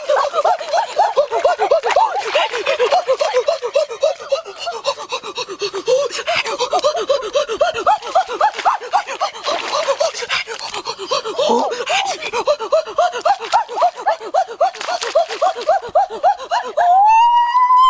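A high-pitched human voice makes rapid, breathless repeated sounds, several a second, like laughing and panting. Near the end it gives one long exclamation that rises and falls.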